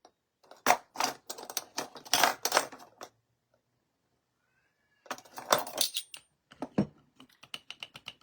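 Measuring spoons clinking and rattling while baking soda is measured out: two bursts of clatter separated by a pause of about two seconds, then a quick run of light taps near the end.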